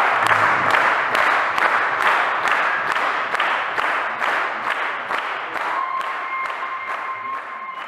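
Audience applauding, the clapping falling into unison at about two and a half claps a second and slowly dying down.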